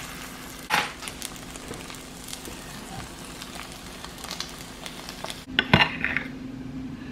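Food sizzling in a frying pan, with a utensil knocking against the pan about a second in and again, louder, near six seconds. A faint steady hum runs underneath.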